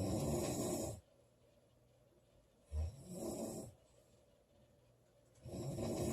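A woman snoring loudly in sleep, three snores about three seconds apart with quiet breathing pauses between; the middle snore starts with a short, sharp low catch.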